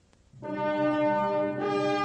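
Brass ensemble playing sustained chords, entering about a third of a second in, with the chord changing about a second and a half in.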